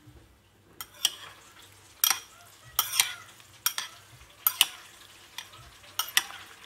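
Metal spoon stirring and scooping kedaluman, daluman leaf jelly in coconut milk and palm sugar syrup, in a bowl: a string of sharp clinks of the spoon against the bowl, some in quick pairs.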